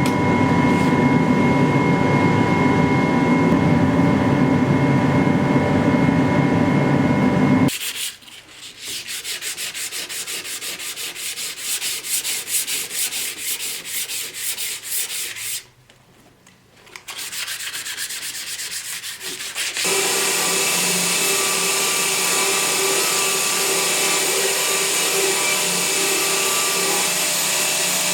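A steady power grinder running on the blade steel, which cuts to a long run of quick, even hand-sanding strokes with a brief pause in the middle. The grinder runs again for the last several seconds.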